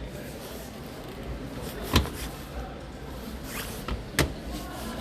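Steady background noise of a large shop floor, with two sharp clicks or knocks, one about two seconds in and another near the end.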